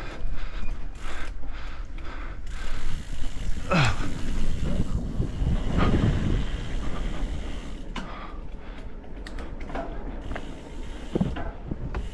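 Mountain bike rolling fast down a dirt singletrack: tyres rumbling over the trail with the chain and frame rattling and clicking over bumps.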